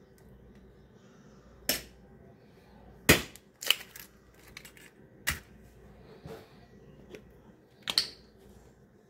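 About five sharp knocks and taps against a stainless steel bowl as food is spooned and set into it, the loudest a little after three seconds in.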